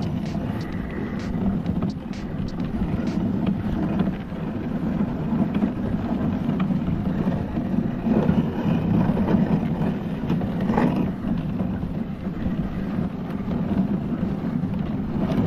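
Dog sled running over a packed snow trail behind a husky team: a steady, noisy low rumble from the runners, with wind on the microphone and a few light knocks from the sled.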